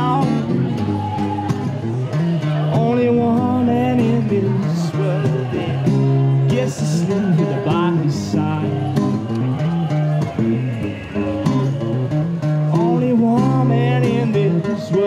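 A man singing a melody while playing an acoustic guitar.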